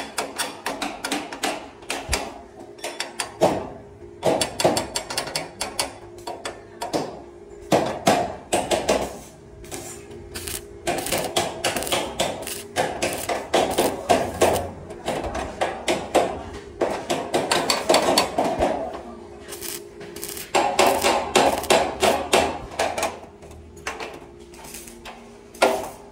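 Thin steel door-frame sections clinking and tapping as pieces are fitted together, mixed with the crackle of a stick welder tacking the joints. Quick irregular clicks and knocks run throughout, with denser crackling stretches in the middle.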